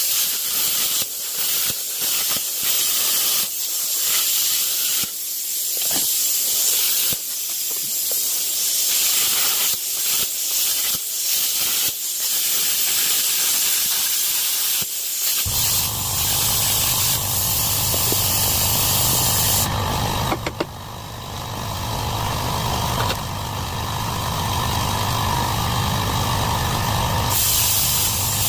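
Plasma cutter cutting through a car's steel frame: a loud, steady hiss that starts abruptly, with a low hum joining suddenly about halfway through.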